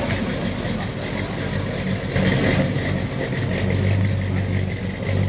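Ford F100 street-machine pickup's engine running as the truck drives slowly past and away, with a steady low engine note that grows stronger about halfway through.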